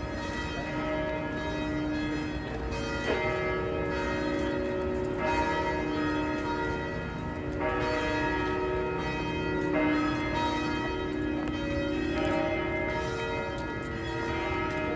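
Church bells pealing. A new strike comes about every two seconds, and each rings on under the next.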